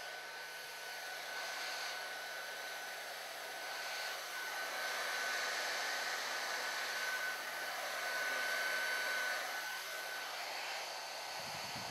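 Electric heat gun blowing hot air onto a heat-shrink molded boot to shrink it onto the cable: a steady fan rush with a thin high whine, a little louder in the middle stretch.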